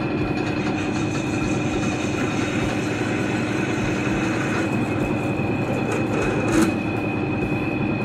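Metal lathe running steadily under power, a steady hum with a high, even whine above it, while it turns a brass rod being cut to length. A brief louder tick comes about six and a half seconds in.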